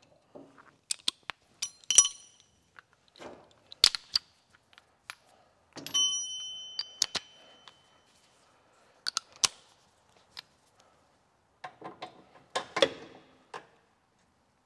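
Steel socket-wrench tools, a socket extension and sockets, clinking and clanking as they are handled and fitted together, in scattered sharp knocks. Twice a clink leaves a brief high metallic ring.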